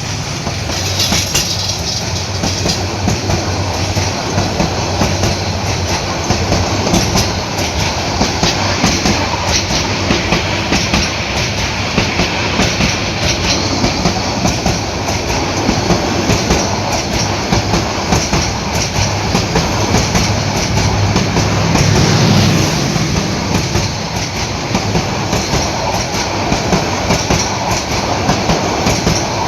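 A train running on rails: a steady loud rumble with the wheels clattering over the rail joints.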